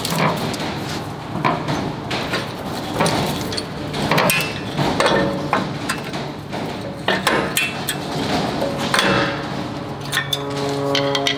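Irregular metallic knocks, clanks and clicks of a truck's rear disc brake caliper and brake pads being handled and pulled off by hand.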